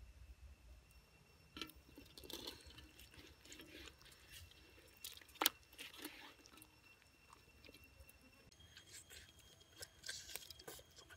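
Faint wet handling of a braised pork leg in a wok of sauce, with scattered crackles and one sharp click midway. Near the end, a person bites into the pork leg and chews.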